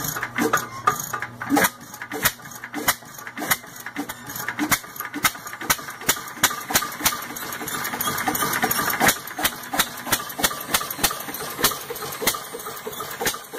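Vintage hit-and-miss stationary engine, fitted with a turbocharger on its exhaust, running: a string of sharp knocks and pops at uneven spacing, roughly two to three a second, over a steady mechanical clatter.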